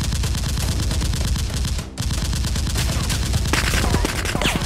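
Automatic-gunfire sound effect laid over a toy-blaster firefight: a rapid, unbroken stream of shots, with a couple of short falling whistles near the end.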